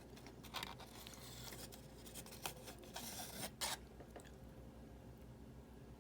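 Faint eating noises from a beef burrito: a few short, soft squishes and crinkles.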